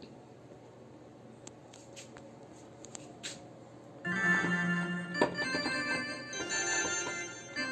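Faint scattered clicks over low noise, then about four seconds in, organ music starts suddenly with sustained chords.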